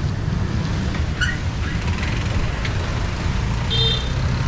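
Street traffic: a steady low rumble of passing vehicles, with a short high chirp about a second in and a brief high beep a little before the end.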